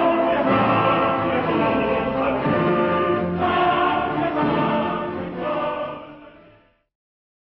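Music with a choir singing sustained chords, fading out about six seconds in, followed by silence.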